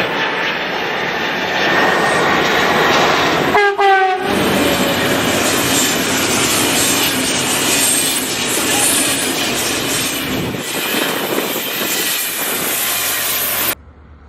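Loud, steady aircraft jet-engine roar with a faint high whine. It drops out briefly about four seconds in and cuts off suddenly near the end.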